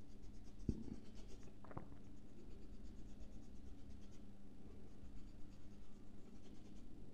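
Whiteboard marker drawing short dashed strokes on a whiteboard: a quick run of faint, repeated scratches, with a couple of light knocks of the marker against the board in the first two seconds.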